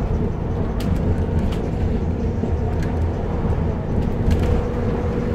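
Bus interior heard from on board: the diesel engine's steady drone, with a few short clicks and rattles.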